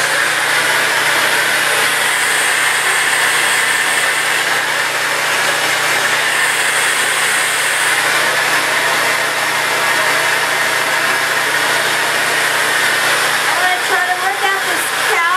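Sedu Revolution 4000 hand-held hair dryer running steadily, blowing hot air through short hair.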